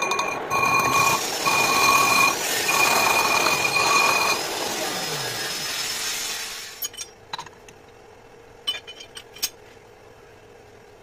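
Metal lathe turning a large steel disc, with a high-pitched squeal at two steady pitches that comes and goes in four stretches over the first four seconds, typical of a cutting tool chattering on the disc face. The lathe then runs down and stops about six to seven seconds in, followed by a few light metallic clicks.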